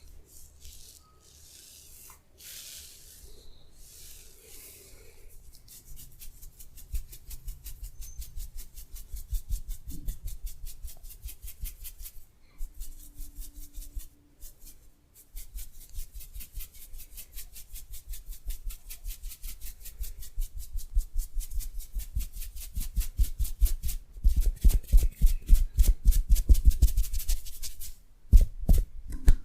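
Hands rubbing softly over skin and hair for a few seconds, then massage tapping: quick rhythmic hand strikes on the body, several a second, growing louder toward the end, with a short break near the end.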